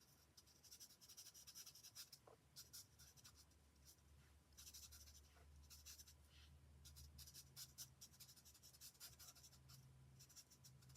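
Faint scratching of a felt-tip alcohol marker nib on card, in many quick short colouring strokes.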